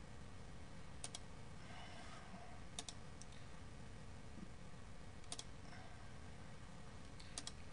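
Computer mouse buttons clicking: a handful of short, quiet clicks, several in close pairs, spread a second or two apart.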